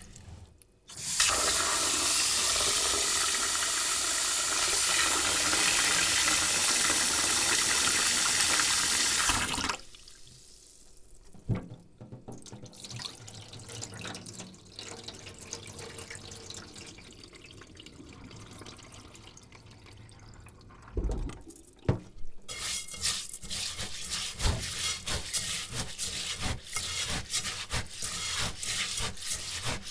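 Rice being washed by hand: a tap runs into the bowl for about eight seconds and is shut off, then the grains are swished softly in the water. After a knock a little past two-thirds of the way in, the rice is rubbed and stirred in quick, rough strokes, grains scraping against the bowl.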